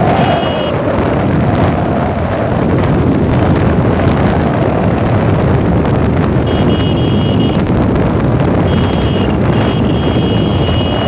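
Wind buffeting the phone's microphone on a moving motorcycle, mixed with the motorcycle's engine and road noise, steady throughout. A thin high tone comes and goes in the second half.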